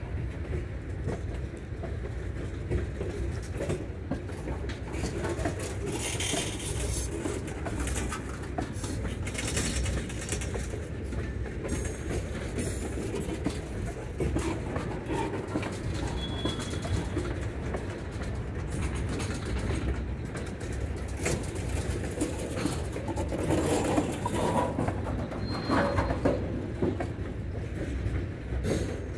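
Freight train of covered hopper cars rolling past close by: a steady rumble of wheels on rail with scattered clicks and knocks. Two brief faint high tones sound over it, one about halfway and one near the end.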